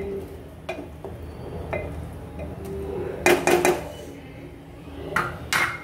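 Wooden spoon stirring a watery vegetable curry in a Hawkins pressure cooker, scraping and knocking against the pot, with a few louder knocks about halfway through and again near the end.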